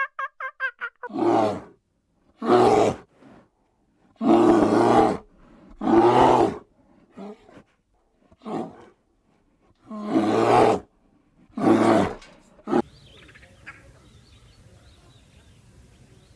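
A large animal roaring again and again, about seven rough, loud roars spaced a second or two apart. Near the end a sharp click, then only faint background.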